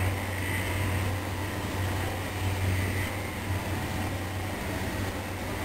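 Distant EU07 electric locomotive hauling a passenger train as it approaches along the line: a steady low hum over an even hiss.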